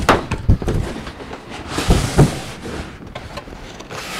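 Cardboard retail box handled and opened on a table: a few knocks and thumps, the loudest pair about two seconds in, with cardboard sliding and scraping as the lid comes off the foam tray.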